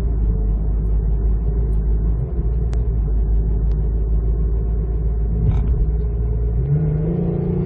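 Holden Commodore Evoke's 3-litre V6 at full throttle, heard from inside the cabin as a heavy, steady low rumble, its note starting to rise near the end. The car barely gains speed: it has no power under load.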